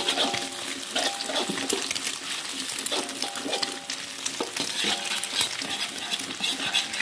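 Metal spatula scraping and stirring repeatedly around a wok, with egg, shallots, garlic and chili frying in oil beneath in a steady sizzle.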